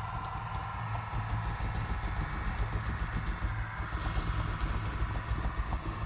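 Drive motors of a 1/16 scale metal RC Caterpillar D5G LGP bulldozer whining as the model turns and drives, with its metal tracks clattering rhythmically over the wooden floor. The whine rises in pitch about halfway through.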